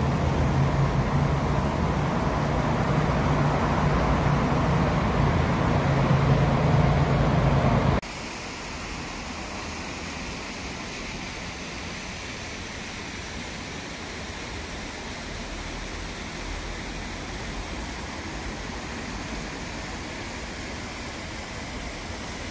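A steady engine hum with a low drone, which cuts off abruptly about eight seconds in, leaving a quieter, even background hiss.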